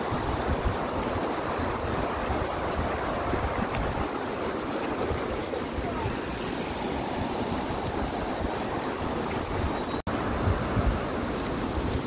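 Wind buffeting a phone microphone: a steady rushing hiss with uneven low rumbling. It breaks off for an instant about ten seconds in.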